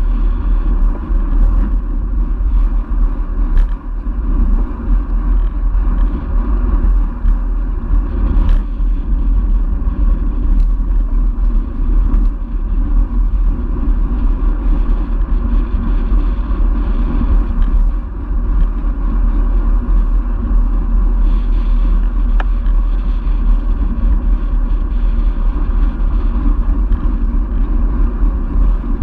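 Steady wind rumble on a bike-mounted camera's microphone while riding a road bike at speed, with road noise from the tyres on asphalt and scattered light clicks.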